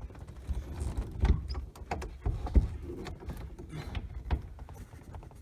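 Hands working the front latch of a 1971 VW Karmann Ghia convertible top: scattered clicks and scrapes of metal and fabric, with two sharp knocks, the first a little over a second in and the louder one about two and a half seconds in.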